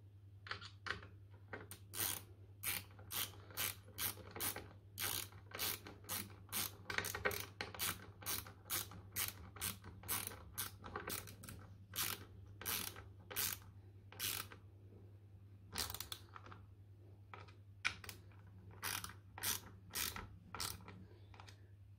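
Hand ratchet clicking steadily, about two clicks a second, as it drives down the bolts that clamp the Kinetico softener valve's levels together. The clicks thin out and come irregularly in the last several seconds.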